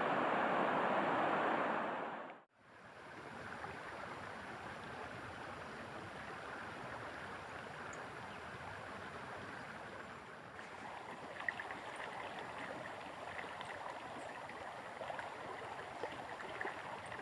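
Steady rush of running water that fades out about two and a half seconds in. A quieter steady outdoor ambience follows, with a few faint, short high chirps.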